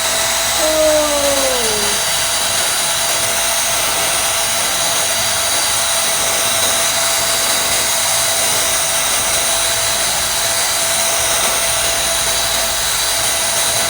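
AGARO Regal 800 W corded handheld vacuum cleaner running at full suction, a steady loud motor whine over rushing air, as it sucks up dust and dirt. A brief falling tone sounds in the first couple of seconds.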